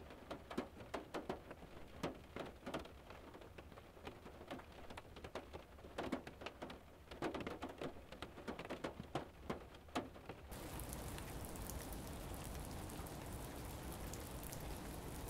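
Irregular light clicks and taps, several a second, for about ten seconds. They stop, and a steady hiss takes over for the rest.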